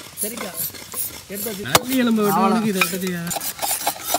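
Knives shaving and scraping wooden sticks in short, repeated strokes, with a sharp click a little under two seconds in. Men's voices come in briefly between the strokes.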